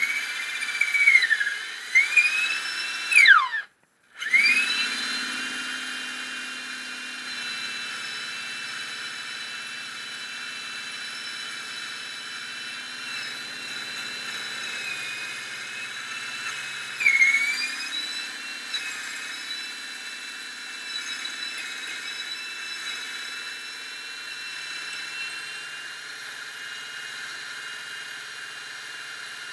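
Electric power tool motor whining at high speed while shaping wood. Its pitch sags briefly near the start and again past the middle as the work loads it, then recovers. The sound breaks off for a moment about four seconds in.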